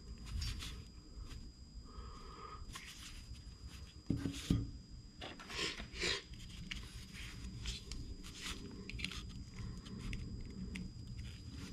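Handling noises from fitting clutch shoes onto a model nitro engine's flywheel: light clicks and scrapes of small parts, with a few louder knocks about four to six seconds in as the engine is handled on the shop towel.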